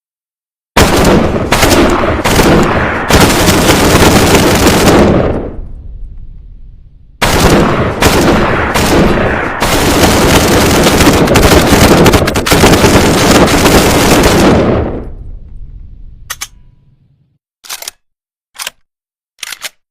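PPSh-41 submachine gun firing fully automatic in two long bursts, each with a few short breaks and a fading echo after it. A few sharp clicks follow near the end.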